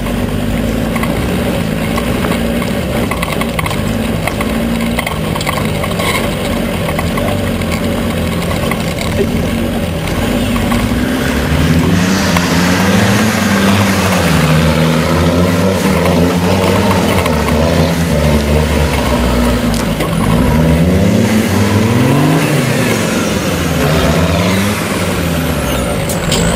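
Engine of a tube-frame trial 4x4 buggy revving up and down over and over as it works through a rocky trial section. The revs swing more sharply and more often in the second half.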